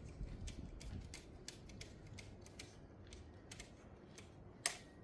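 Faint, irregular small clicks and ticks of wires and tools being handled at a 240-volt outlet's terminals as the conductors are fitted, with one sharper click near the end.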